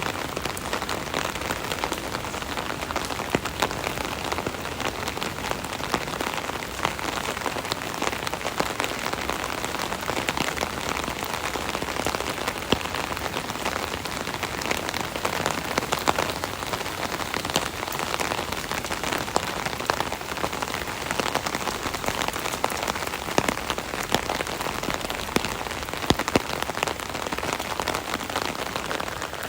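Steady rain pattering on an umbrella canopy, a dense continuous spray of drop hits with occasional louder individual drops.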